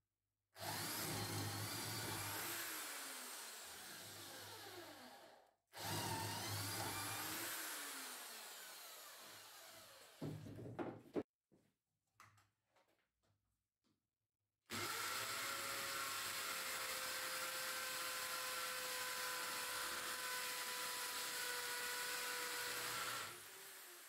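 Corded Alphatools impact drill run twice for a few seconds, drilling into a pine beam, each run winding down with a falling whine. A few light knocks follow. Then a longer steady run drilling into a concrete slab, ending with the motor spinning down.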